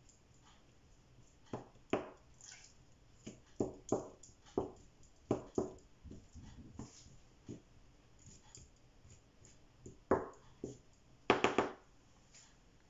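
A metal spoon tapping and scraping as filling is spread over filo pastry, in irregular light clicks, with a quick run of louder clinks near the end as the spoon knocks against the pot.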